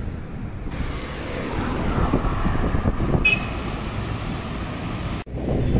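Road traffic heard from a moving bicycle: passing cars and a low wind rumble on the microphone. A brief high-pitched sound cuts through about three seconds in.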